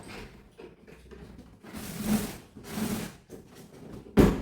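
Handling noises: two short swishing rubs, then a sharp knock near the end.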